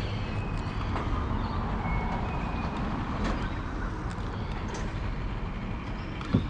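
Boat motor running steadily with a low hum, with a brief sharp squeak near the end.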